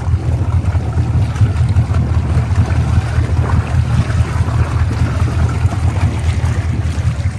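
Motorboat under way, its engine beneath the swim platform running steadily with the propellers churning the water at the stern: a constant low drone under hissing, splashing water.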